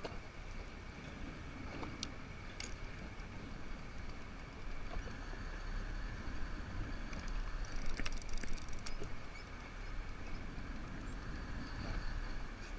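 Steady wind and sea noise aboard a small fishing boat on open water, with a faint steady high whine and a few light clicks.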